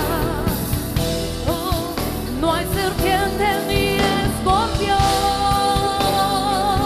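Church worship music: a singer slides up into long held notes with vibrato over the band's accompaniment and regular drum beats.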